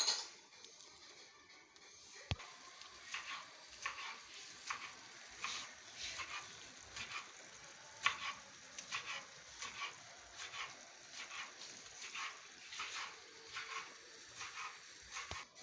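Onions and chopped tomatoes frying in oil in a pan and being stirred, with irregular scraping strokes about twice a second over a faint steady sizzle.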